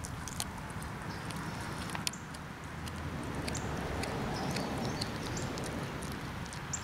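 A cat chewing and tearing at a freshly killed chipmunk, a run of sharp, irregular crunching clicks from bites into bone and flesh over a steady low outdoor hum.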